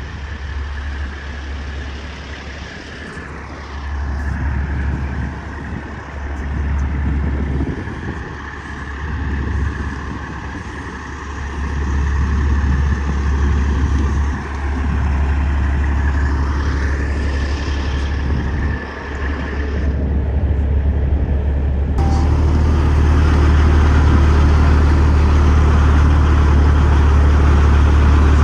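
Semi truck running, its engine drone steady underneath while higher tones rise and fall. About 22 seconds in the sound changes abruptly to a louder, steadier engine drone.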